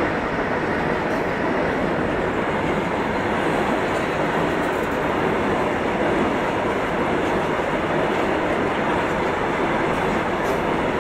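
Long goods train of open box wagons running past at close range: a steady, unbroken noise of wagon wheels and bodies rattling along the rails.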